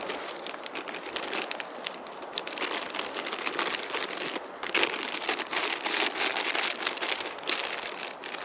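A plastic bag crinkling and rustling as it is handled, a dense irregular crackle that grows louder about halfway through and eases off near the end.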